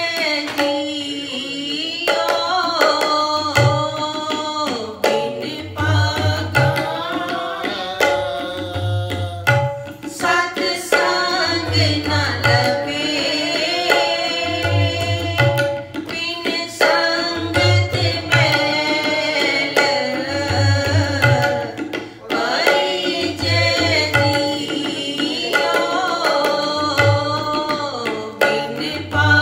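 Sikh kirtan: a woman singing a shabad over sustained harmonium tones, accompanied by tabla, whose deep bass drum sounds in a steady repeating cycle.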